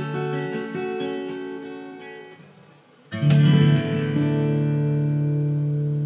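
Two Seagull acoustic guitars playing picked notes that die away to a brief hush, then a loud strummed chord about three seconds in that is left to ring.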